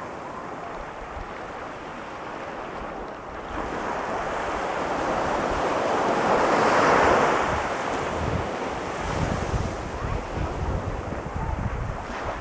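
Ocean waves breaking on a sandy beach: the surf swells to a crash about seven seconds in and then washes out. Wind buffets the microphone in the second half.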